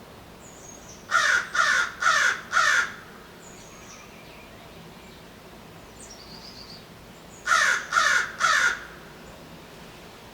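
American crow cawing: a series of four harsh caws in quick succession, then three more about five seconds later.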